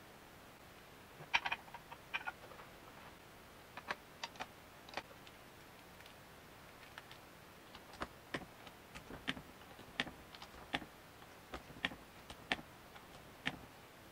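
Light, irregular metallic clicks and taps of engine parts being handled and fitted onto a machined aluminium two-stroke cylinder block and its studs during top-end assembly. A few taps come about a second in, and they grow more frequent in the second half.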